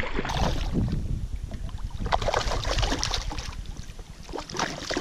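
A hooked fish thrashing at the water's surface right beside a kayak, splashing again and again at irregular moments.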